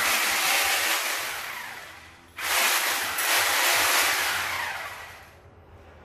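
Two blast sound effects, each starting suddenly as a loud hiss and fading away over about two seconds; the second comes about two and a half seconds in.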